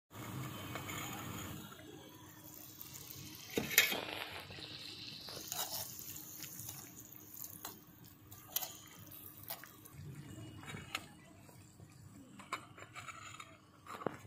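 Water splashing and pouring in a metal cooking pot, with scattered clinks of utensils and a sharp knock about four seconds in.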